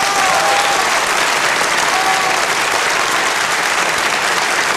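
Concert audience applauding, a steady dense clapping with a few faint calls from the crowd near the start and about two seconds in.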